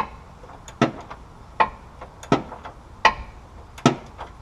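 Ratchet wrench worked in short swings that advance one click at a time, giving a sharp metallic click with a brief ring about every three-quarters of a second in a steady rhythm.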